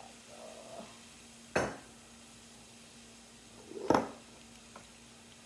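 Two sharp knocks, about two seconds apart, of kitchen jars and containers being picked up and set down on a counter; the second knock is the louder.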